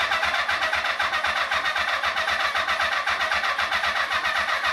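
Honda CB400 Four inline-four engine cranking over on its electric starter with an even, rhythmic chug, not catching on this first start attempt after years laid up.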